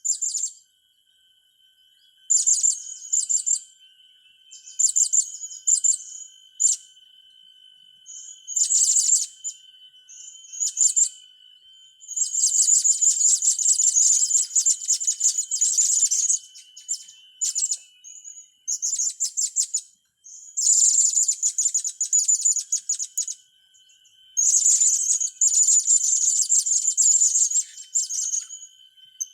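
Young blue-crowned hanging parrots (serindit) calling in bursts of very high-pitched, rapid chattering, some bursts lasting several seconds, with short pauses between. A faint steady high whine runs underneath.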